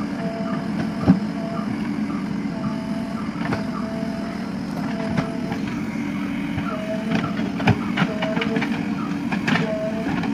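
JCB 3DX backhoe loader's diesel engine running steadily while it digs and moves soil, with a short beep repeating about every second and sharp metallic knocks from the bucket and arm, the loudest about a second in and a cluster near the end.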